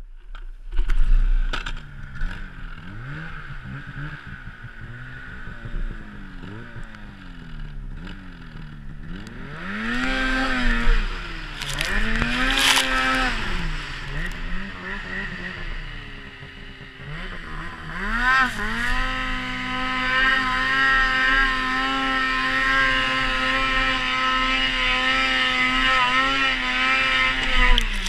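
Polaris Pro-RMK 800 snowmobile's two-stroke twin engine being ridden, its revs rising and falling through the first half with a sharp climb around the middle. After about 18 seconds it revs up and holds a steady high pitch.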